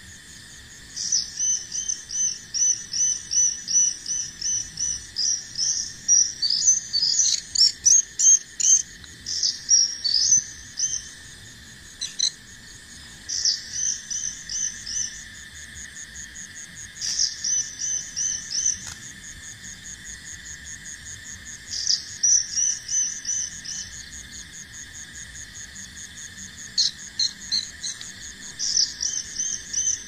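Bar-winged prinia (ciblek) calling in quick runs of sharp, repeated high notes, several bouts a few seconds long, over a steady drone of insects.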